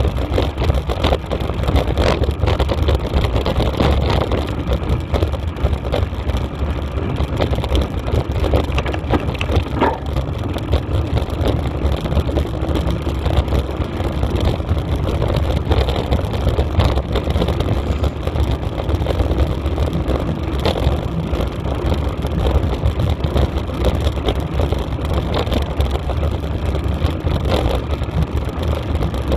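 Steady rumble of wind buffeting the microphone, with rattling and small knocks as the camera jolts over a rough dirt track at speed.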